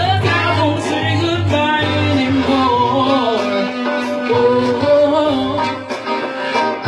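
Live band music: a woman singing a held, wavering melody into a microphone, with electric guitar and low sustained bass notes underneath.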